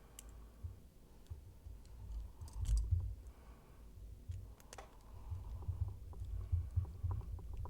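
A bent bobby pin picking a Peerless 700C handcuff lock: a few sharp, small metallic clicks over low handling bumps as the cuff is worked.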